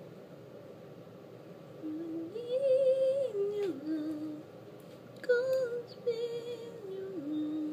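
A person humming a slow, wordless tune in two phrases, the first starting about two seconds in and the second after a short pause, the pitch stepping from note to note.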